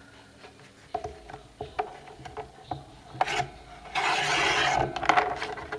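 Sliding-blade paper trimmer cutting through a sheet of collaged paper: a rasping hiss of about a second as the blade is run along its rail, near the end. Before it, light taps and paper shuffling as the sheet is lined up against the rail.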